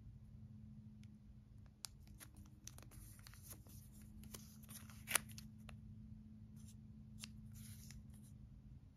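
Faint clicks and rustles of a hard plastic graded-card slab being handled and turned over in the hands, with the sharpest click about five seconds in.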